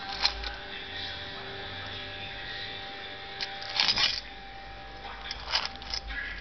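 Dog nosing and eating dry kibble from a metal bowl: a few sharp clinks and crunches, the loudest cluster about four seconds in, over a steady hum.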